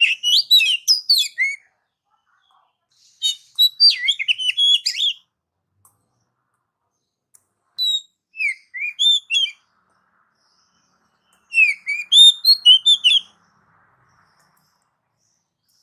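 Oriental magpie-robin (kacer) singing: four phrases of rapid whistled notes that sweep up and down, each a second or two long, with pauses of two to three seconds between them.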